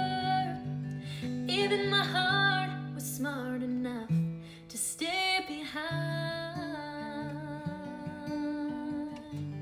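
A woman singing a country song over an acoustic guitar, stretching out long held notes that bend in pitch, with a short break in the voice about four seconds in.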